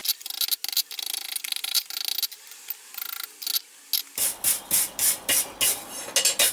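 Hand hammer striking hot 10mm square steel on an anvil while forging a scroll, scattered blows at first, then a steady run of about three blows a second in the second half.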